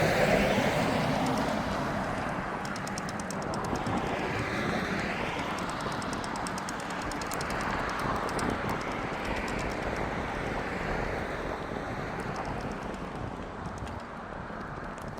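Road traffic passing on asphalt, mostly tyre noise rather than engines. Each vehicle swells and fades as it goes by, and the loudest pass comes at the start.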